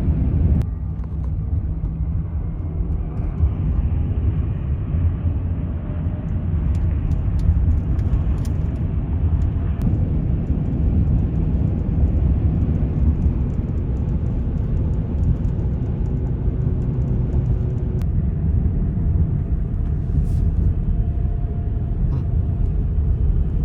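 Tesla Cybertruck, an electric pickup, driving along the road: a steady low rumble of tyre and road noise.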